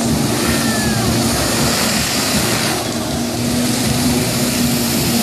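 Personal watercraft engine running hard to drive a flyboard, a steady engine note under the rushing spray of the water jets hitting the surface.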